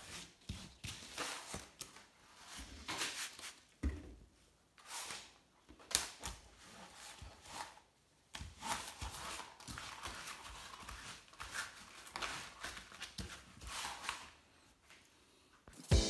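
Cloth rubbing over plastic fridge shelf liners on a stone worktop in repeated wiping strokes, with a couple of light knocks as the mats are handled.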